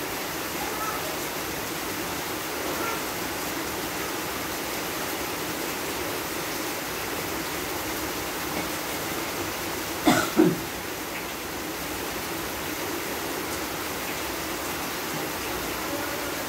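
Rain falling steadily, a constant hiss. About two-thirds of the way through, two short, loud sounds half a second apart stand out above it.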